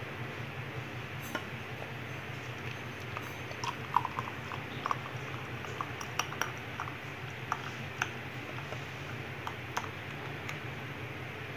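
Thick almond milk being poured from a metal pot into a glass: scattered light clinks and ticks of the pot against the glass, over a steady low hum.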